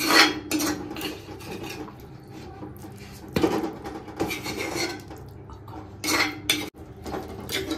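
A metal spoon scraping and clinking against steel cookware as cooked curry is dished out of a wok into a steel serving bowl. It comes in about six short clattering bursts, some with a brief metallic ring.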